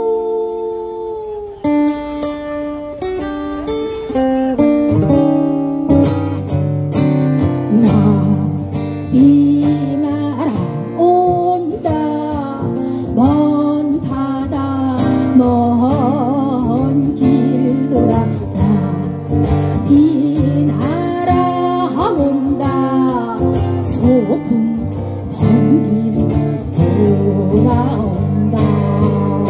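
A singer performing a song to strummed acoustic guitar. A held note breaks off about a second and a half in, then the guitar strumming and the sung melody carry on.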